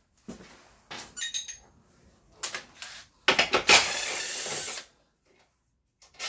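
Metal tools and parts clinking and being handled, then a short burst from a power tool, about a second and a half long, starting a little over three seconds in.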